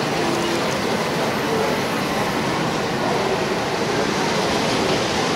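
Model passenger train running along the layout track, a steady rolling noise.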